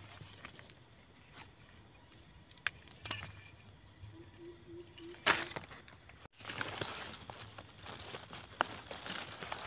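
Dry leaf litter rustling and crackling under hands and a knife blade as wild mushrooms are dug out and picked, with one sharp snap a little past five seconds in.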